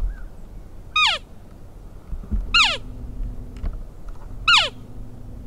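Elk calling: three short, high whistled calls, each sliding down in pitch, about a second and a half apart.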